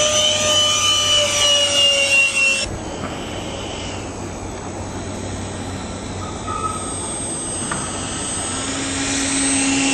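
Electric ducted fan of a Rafale RC jet model whining at a high pitch that falls slightly as the jet flies by. About three seconds in, the whine cuts off and a steady rushing noise follows, with a low steady hum coming in near the end.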